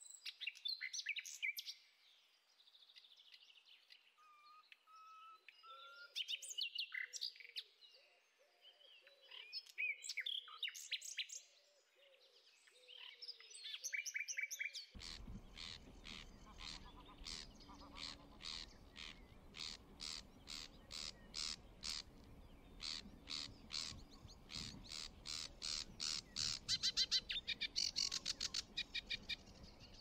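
A common nightingale singing varied phrases, with a short series of pure whistled notes. About halfway through, a sedge warbler takes over with a fast, chattering song of rapidly repeated notes.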